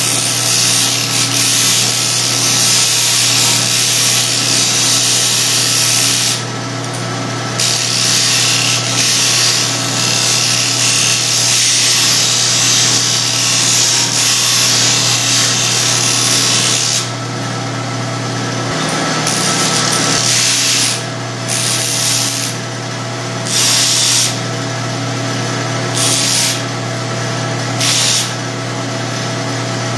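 Bench disc sander running with a steady motor hum while the corners of a small metal bracket are ground round against the abrasive disc. Long stretches of grinding fill the first half; near the end come several short touches about a second or two apart.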